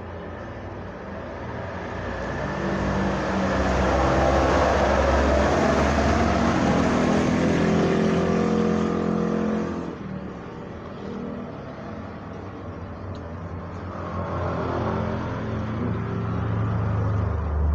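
Motor vehicles passing on a road with engines running: one loud pass swells from about two seconds in and drops away sharply near ten seconds, then a second, quieter one builds toward the end.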